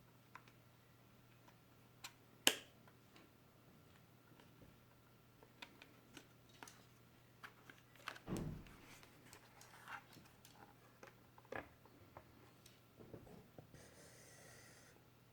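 Faint, scattered taps and clicks of hands handling a keyboard and its packaging, with one sharp click about two and a half seconds in and a soft thump about eight seconds in, then a brief soft rustle near the end.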